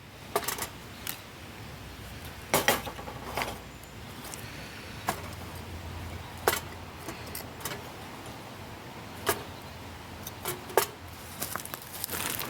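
Small bits of timber being laid into a brew-kit fire over firelighters: scattered, irregular sharp knocks and clinks of wood against the kit.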